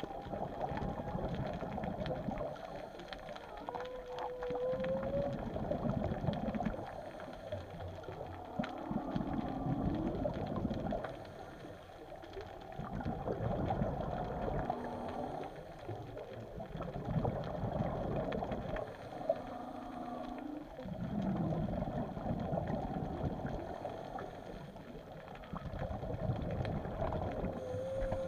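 Humpback whale song heard underwater: a run of low moans, grunts and short gliding tones, some rising and some wavering, that swell and fade in phrases every few seconds.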